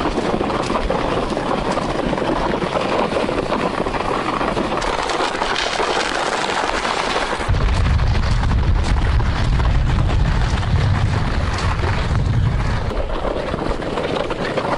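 Wind buffeting the microphone while walking across snowy ice, with a steady crunching hiss of footsteps. A heavy low rumble of a wind gust comes in about halfway through.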